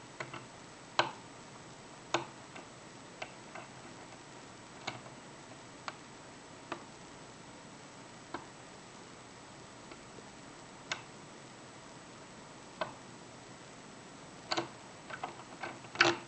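Small sharp clicks of a thin hook pick working the pins inside a euro cylinder lock, irregular, roughly one a second, with a quick cluster of several near the end, the loudest at the very end, over a steady hiss.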